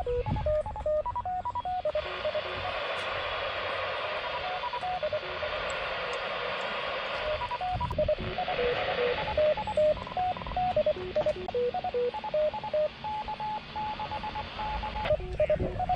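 Hidden amateur-radio transmitter's tone signal heard through a direction-finding receiver: a steady string of short beeps at changing pitches, like a simple tune, over radio hiss.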